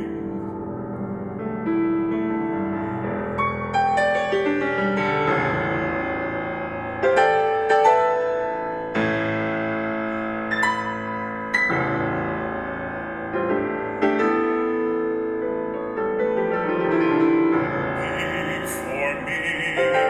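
Piano playing a solo passage in a contemporary classical art song: struck chords and single notes ringing on one after another, with sharper accents about 7, 8 and 11.5 seconds in.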